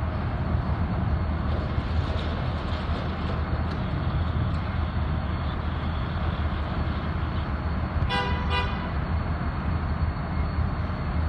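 Union Pacific SD70ACe diesel locomotive's EMD 710 engine running with a steady low rumble as the locomotive rolls slowly along, with two short horn blasts about eight seconds in.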